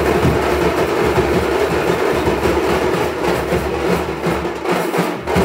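Loud, dense, continuous din of a packed festival crowd, easing slightly near the end.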